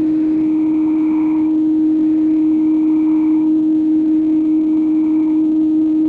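Electronic music: a single low synthesizer note held steadily as a loud drone, with faint tones swelling and fading above it.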